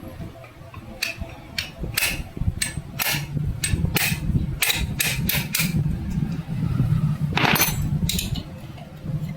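A run of sharp metallic knocks or taps, roughly two a second, from work on a Royal Enfield Bullet's gearbox. A brief hissing scrape comes near the end.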